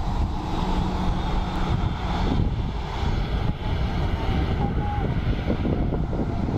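Airbus A320-family airliner's jet engines running at low power as it turns onto the runway and lines up for take-off, mixed with heavy wind buffeting on the microphone.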